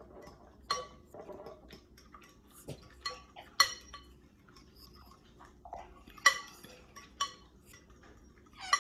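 A metal spoon stirring egg into yogurt in a glass mixing bowl, the spoon clinking sharply against the glass several times, each clink ringing briefly, with a soft scraping in between.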